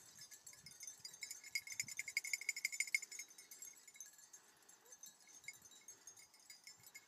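Small bells on the hounds' collars jingling as the dogs move about, busiest and loudest from about one to three seconds in.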